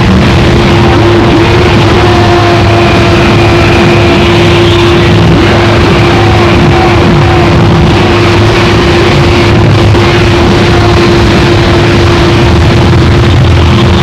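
Harsh noise music: a loud, dense, unbroken wall of distorted noise with a steady droning tone held beneath it and a shifting low rumble.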